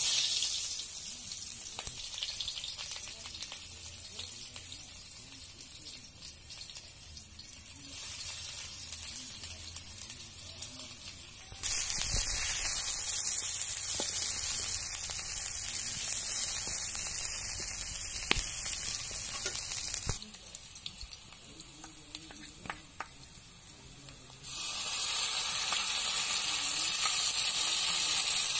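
Sliced onions and spices sizzling in hot oil in an iron kadai, stirred now and then with a metal spatula that clicks and scrapes against the pan. The sizzle starts loud as the onions go in, and several times it suddenly gets louder or drops back.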